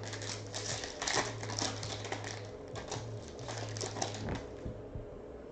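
2014 Topps Mini Chrome football cards being handled and flipped through one after another: quick, irregular light clicks and rustles, over a low steady hum.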